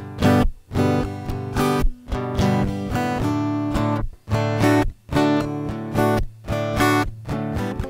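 Acoustic guitar strummed in a steady rhythm, with short gaps between strum patterns: an instrumental break between sung verses of a blues song.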